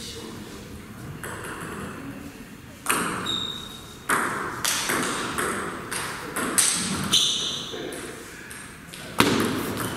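Table tennis ball clicking sharply against the table and bat, a run of hits about two a second, with a louder crack near the end.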